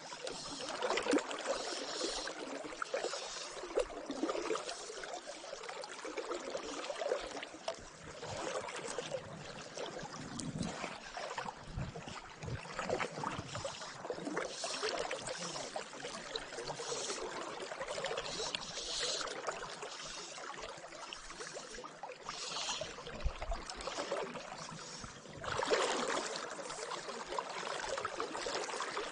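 River water flowing and sloshing close to the microphone, with uneven swells and small splashes, as from current moving around a wading angler's legs.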